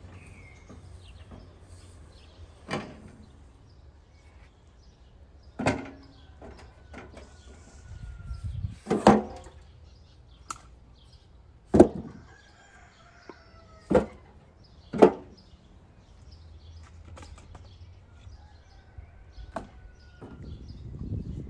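Cut firewood logs dropped one at a time into a steel wheelbarrow tray: about six sharp wooden knocks a second or more apart, clustered in the middle.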